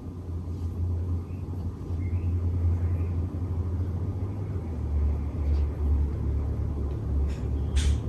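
53-inch Casablanca Halogen Star ceiling fan running at speed with five blades: a low, uneven rumble. A brief sharp click comes near the end.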